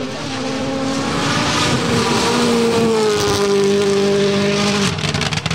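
Hyundai i20 N Rally1 rally car's turbocharged four-cylinder engine at full throttle, growing louder as the car approaches and passes. About five seconds in the engine note drops sharply and the sound turns choppy.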